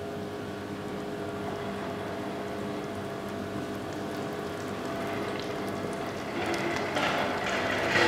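Molten bell bronze pouring from the furnace down the casting channel into a bell mould: a steady rushing hiss over a steady hum. It grows louder and crackles from about six seconds in.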